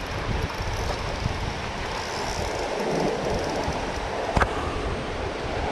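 Steady rushing of a flooded creek's current under a low, fluctuating rumble, with a single sharp click a little past four seconds in.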